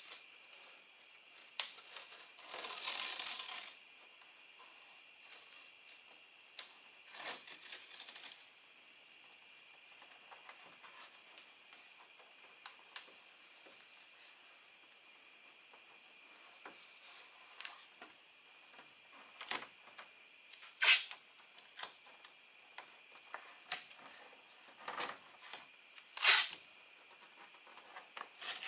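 Adhesive masking tape being pulled off the roll and torn in several short rips, the two loudest late on, over a steady chorus of crickets.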